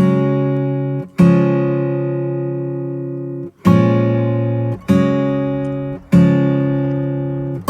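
Background music: acoustic guitar chords strummed and left to ring, five strums with long sustains between them.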